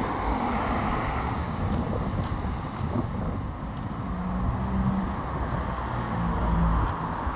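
A car's engine running close by over steady street traffic noise, its hum coming up twice, in the middle and near the end.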